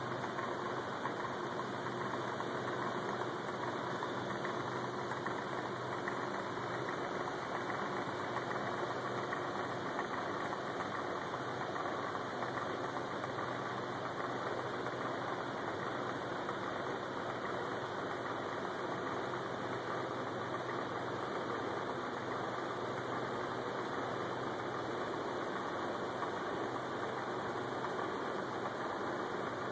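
Steady machinery running with a constant hum and whir, unchanging throughout.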